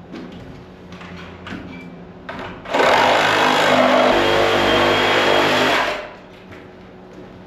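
Reciprocating saw cutting through wood framing for about three seconds, starting and stopping abruptly, with scattered light knocks before it.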